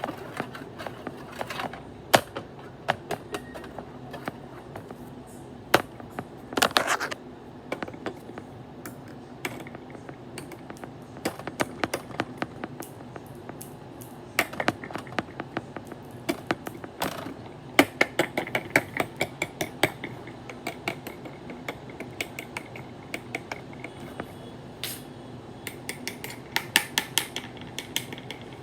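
Many sharp clicks and taps of small hard objects, some single and some in quick runs of several a second.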